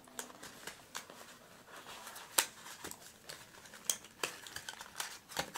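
Cardboard toy packaging handled by hand: rustling and scraping with scattered sharp clicks and taps, the loudest about two and a half seconds in and again near four seconds.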